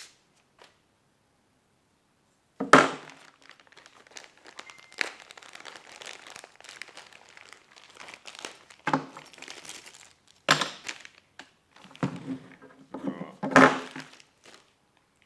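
Packaging being crinkled and torn open while the saw's parts are unpacked, starting about two and a half seconds in, with about four sharp knocks as parts are handled.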